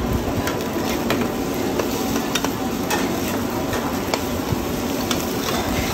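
Oyster omelette, egg and oysters in oil, sizzling on a wide flat griddle while two metal spatulas scrape, chop and turn it, giving many sharp clicks of metal on the pan.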